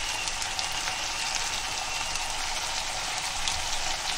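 Chopped chillies, capsicum and onion frying in oil and sauce in a non-stick pan: a steady sizzle.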